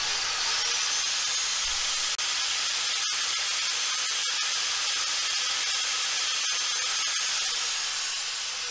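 Angle grinder with a cutting disc running and cutting through stainless-braided nylon fuel hose clamped in a vise: a steady hiss with a whine that rises as the disc spins up at the start and falls away as it winds down near the end.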